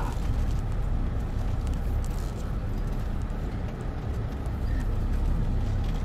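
Footsteps of someone walking up a paved lane, over a steady low outdoor rumble.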